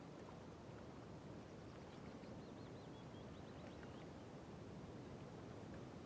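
Quiet lakeside ambience with a low steady rumble, and a small songbird's faint, high, warbling phrase of quick up-and-down notes from about one and a half to four seconds in.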